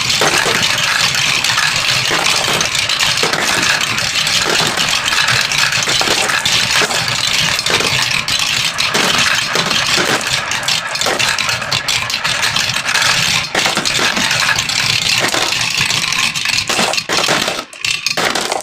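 Many marbles rolling and clattering down a marble run track: a continuous dense rattle full of small clicks, which thins out and stops near the end.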